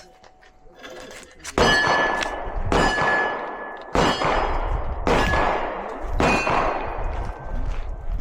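Five 9mm pistol shots from a Glock 17 Gen 6, about a second apart. Each shot is followed by the ring of a struck steel plate target.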